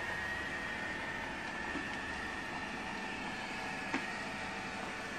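Robot vacuum cleaner running: a steady whir with a high whine, and a faint click about four seconds in.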